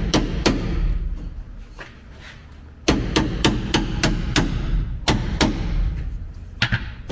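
Quick hammer taps driving a long screwdriver into the old hardened rubber window channel seal of a 1949 Chevy pickup door, breaking it out in pieces. A few strikes at first, a pause of about two seconds, then a run of about three or four taps a second.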